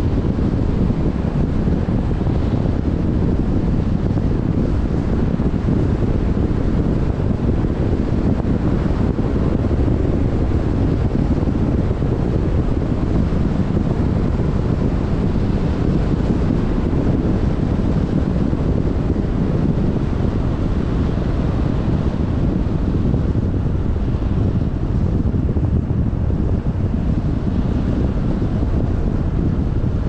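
Wind buffeting the microphone: a loud, steady low rumble with no breaks.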